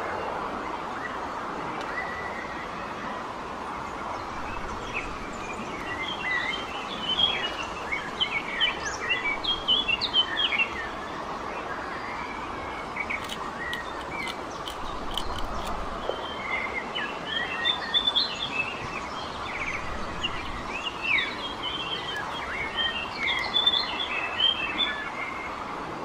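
Small songbirds chirping and twittering in two lively spells over a steady background hiss, with a few faint ticks in between.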